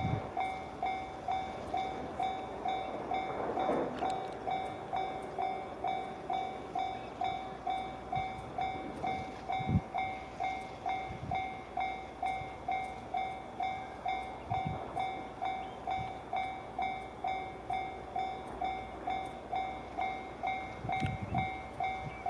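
Japanese railway level-crossing alarm ringing steadily, about two dings a second, over the faint running of an approaching freight train hauled by an EF210 electric locomotive. A few dull thumps come through now and then.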